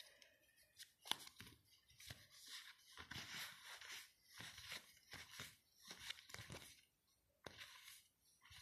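Faint rustling and clicking of paper football stickers being handled and sorted: a run of short papery rustles and light taps.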